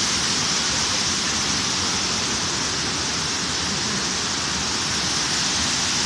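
Tall waterfall pouring into a rocky pool, with the stream below rushing over boulders: a steady, unbroken hiss of falling water.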